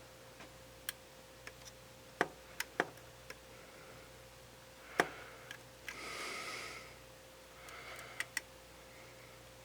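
Faint, scattered small clicks and taps of a tool and fingers on the plastic internals of a Nikon D5500 as a flex ribbon cable is worked into its connector and will not seat. There is a soft breath through the nose about six seconds in.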